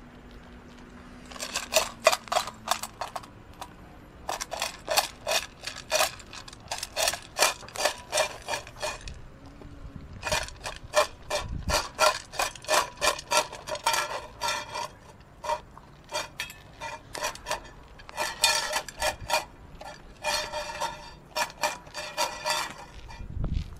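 A large black dog wolfing down dry kibble from a white enamel food bowl. Its teeth and muzzle knock the bowl in rapid clinks that ring, in runs of a few seconds with short pauses, mixed with the crunch of the kibble.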